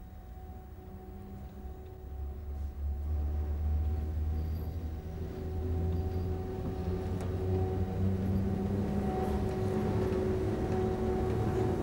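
Vintage Swiss electric locomotives hauling a train past at low speed: a low rumble with a steady electric hum that grows louder as the train approaches, reaching full strength about six seconds in.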